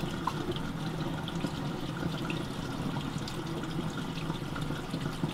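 Water from the emptied sink running down the drain pipe into the lift pump basin: a steady trickle with scattered faint drips.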